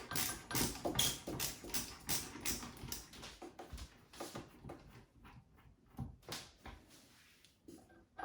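Ratchet screwdriver clicking as screws are undone, about three to four quick clicks a second, thinning out after about four seconds and dying away near the end.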